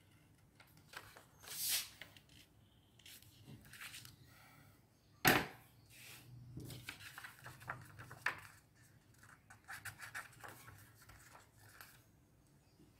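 Craft paper rustling and swishing as it is cut with scissors and handled, in short irregular bursts, with one sharp knock about five seconds in.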